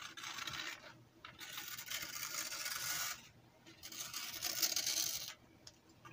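Newspaper being sliced with a knife blade: three long scraping strokes through the paper, with short pauses between them.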